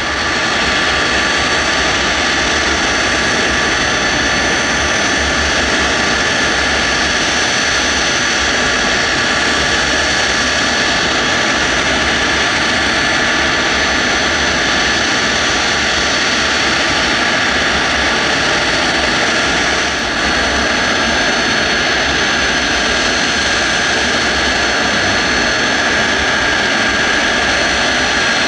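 Four Pratt & Whitney JT9D turbofans of a Boeing 747SP running at taxi power: a loud, steady jet whine with several high steady tones over a rushing roar, fading in at the start as the airliner taxis in.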